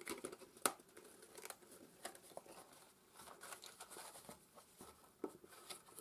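Faint rustling and light taps of paper and card stock being handled and pressed by hand, with a sharper click a little under a second in.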